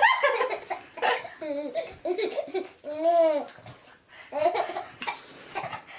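Baby laughing and babbling in a string of short, high-pitched bursts.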